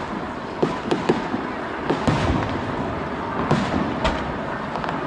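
Aerial fireworks shells bursting in a run of sharp bangs, about seven in five seconds at irregular intervals.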